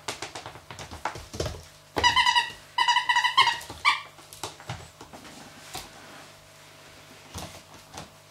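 A Dalmatian puppy at play, with light clicks and knocks on a hard floor. About two seconds in come three loud, high-pitched squeals, the middle one the longest.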